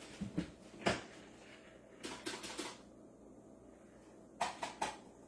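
Scattered light clicks and knocks of small household objects being handled: a sharp knock about a second in, a few more around two seconds, and a quick run of three near the end, over a faint room hum.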